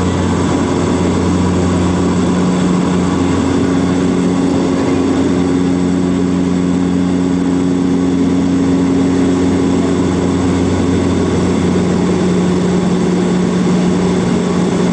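Airliner engines heard from inside the cabin during climb-out after takeoff: a steady, loud drone of rushing noise with a low, even hum of a few steady tones.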